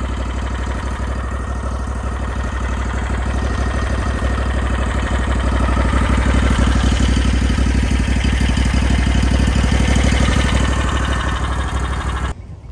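Bandit SG40 stump grinder's engine running hard and steady, getting louder about five seconds in and easing slightly before stopping abruptly near the end.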